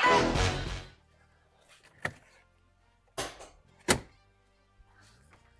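An intro sting of music with a car burnout and tire-squeal sound effect fades out over the first second. Then come three short, sharp thunks, about two, three and four seconds in, from work inside the open door of the car.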